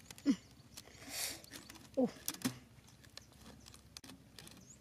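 Rubber band being stretched and wrapped around wooden stakes, giving a few light clicks and snaps, with a few short falling voice sounds in between.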